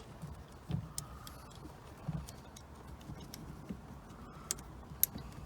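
Scattered light clicks and taps of small metal parts being handled: the steering wheel's decorative ring and its screws being fitted onto the quick-release hub. The sharpest click comes near the end.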